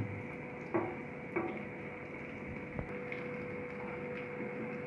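Oil sizzling steadily around vegetable Manchurian balls deep-frying until crisp and red-brown, with a few short knocks of a wooden spatula against the pan in the first few seconds.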